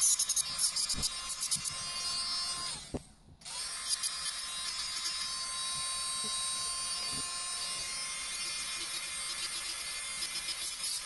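Blackheart JD700 electric nail drill (e-file) whirring as its bit grinds builder gel off a toenail. About three seconds in, the motor spins down and stops, then spins back up and carries on grinding.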